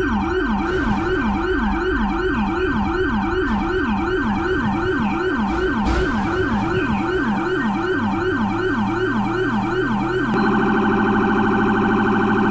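Electronic emergency-vehicle siren in fast yelp mode, its pitch sweeping up and down about three times a second. About ten seconds in it switches to a much faster warble.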